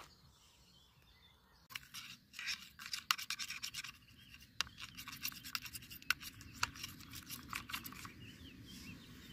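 A metal spoon stirring coffee in a camping mug, rapid scraping and clinking against the inside of the mug, starting about two seconds in.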